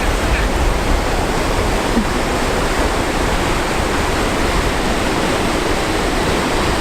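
Ocean surf washing onto the beach in a loud, steady roar.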